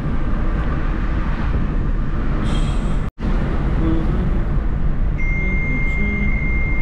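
Road rumble and wind rushing in through an open window of a moving car, loud and steady. It cuts out for an instant about three seconds in, and a thin steady high tone joins near the end.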